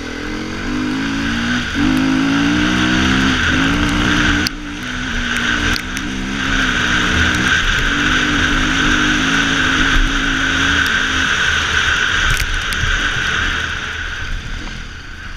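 Dirt bike engine under throttle, its pitch rising and dipping, with brief cuts about two, four and a half and six seconds in, and easing off over the last few seconds, over a steady rushing noise.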